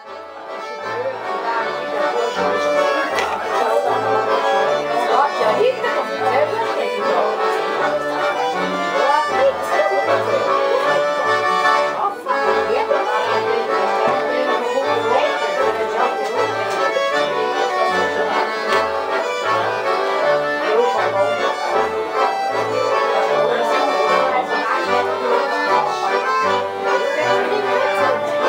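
Accordion music with a steady, evenly repeating bass line, fading in at the start.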